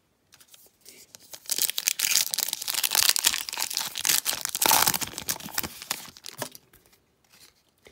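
A foil Panini Prizm card-pack wrapper being torn open and crinkled by hand, a dense crackling tear that starts about a second and a half in and stops about a second before the end.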